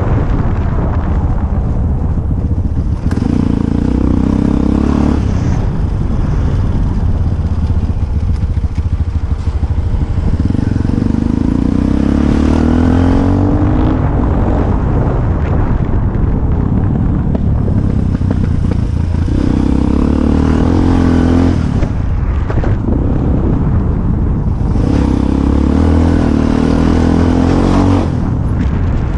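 Motorcycle engine running on the move, picking up revs and rising in pitch several times as it accelerates, then easing off, with wind rumbling over the microphone.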